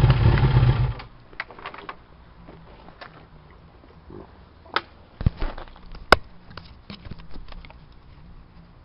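1992 Yamaha FZR600's inline-four engine running steadily, then shut off about a second in. After it stops, scattered light clicks and knocks, the sharpest about six seconds in.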